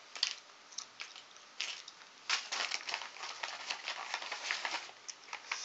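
Packaging being handled and unwrapped: crinkling and rustling with many small clicks, busiest from a little over two seconds in.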